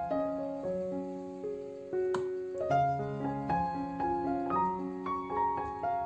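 Background piano music: a gentle melody of single notes over changing chords. One brief click about two seconds in.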